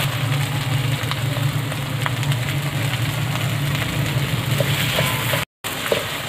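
Grated radish halwa frying and sizzling in a wok while a wooden spatula stirs through it, with a few light scrapes over a steady low hum. The sound cuts out for a moment about five and a half seconds in.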